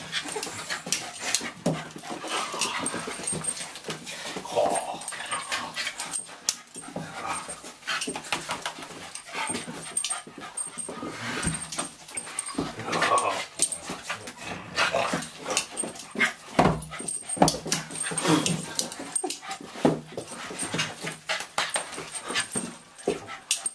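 Schnauzer puppy whining and whimpering in excited greeting, in a string of rising and falling cries. Short sharp scuffles and rustles of paws and petting hands run among the cries.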